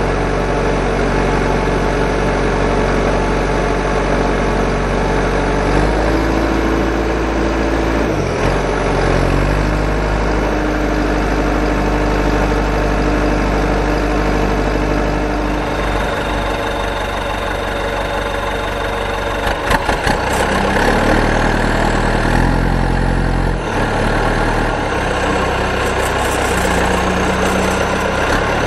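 A large engine running steadily, its pitch stepping up and down several times as if revved between idle and higher speeds.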